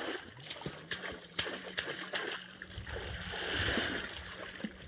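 River water splashing and sloshing, with several sharp knocks and a rushing swell of water about three seconds in.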